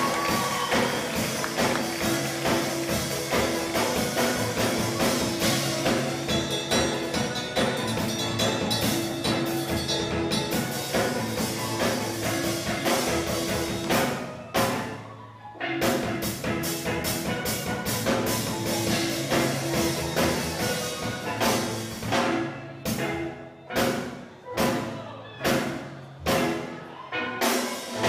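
Live steel pan band with drum kit playing. About 14 s in the music stops for a second and a half, then resumes, and near the end it turns to a series of short accented hits, roughly three every two seconds.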